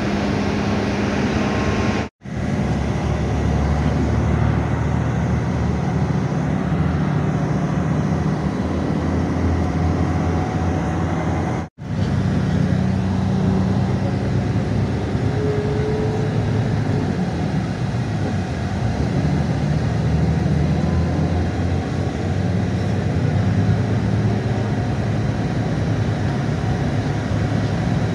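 Inside a moving coach bus: a steady engine drone and road rumble. The sound drops out completely for a split second twice, about two seconds in and again near twelve seconds.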